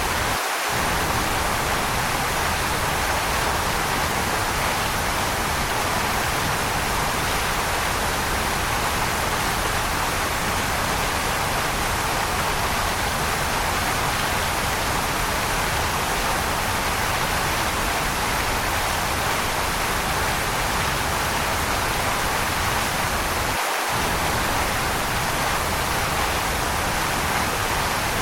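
Waterfall rushing in a steady, even roar of water noise. The low rumble drops out for an instant twice, about half a second in and again near the end.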